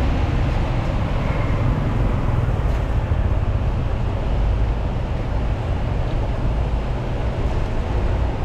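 Chicken pieces deep-frying in a large wok of bubbling oil, a steady sizzling hiss over a continuous low rumble.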